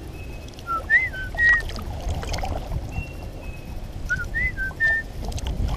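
A songbird whistling a short phrase of four clear notes, about a second in and again about four seconds in, with a few thin higher single notes between. Underneath runs a steady low rumble of moving water and wind.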